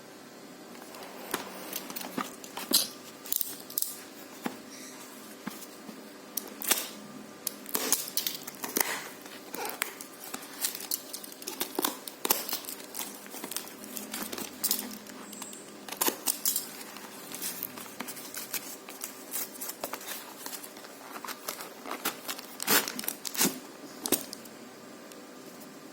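Parcel packaging being opened by hand: plastic wrapping crinkling and tearing, with irregular sharp crackles and rustles.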